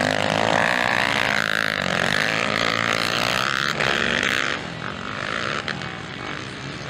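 Motocross dirt bike engine revving hard, its pitch rising and falling as the rider works the throttle. Loud for the first four and a half seconds, then drops to a quieter level.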